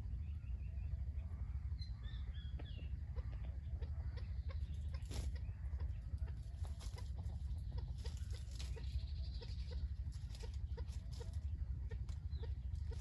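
Red junglefowl clucking in a run of short, low, repeated clucks, over a steady low rumble, with a few high chirps about two seconds in.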